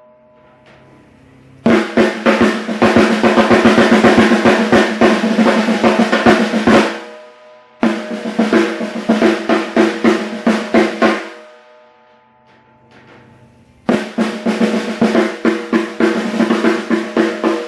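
14" x 6.5" beech snare drum played with wooden sticks: three passages of fast strokes and rolls. The first two ring out before a pause, and the third runs on.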